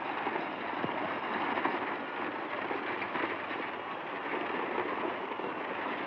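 A grandstand crowd cheering in a steady roar, mixed with the galloping hooves and rumbling wheels of racing horse-drawn coaches.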